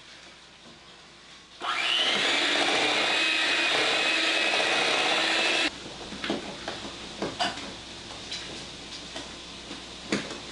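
An electric hand mixer starts about a second and a half in, runs steadily for about four seconds and cuts off abruptly. After that, dough is stirred by hand in a glass bowl, with irregular scrapes and knocks of the utensil against the bowl.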